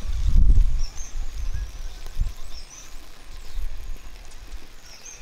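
Low gusting rumble of wind on the microphone, strongest in the first second, with a few short high bird chirps.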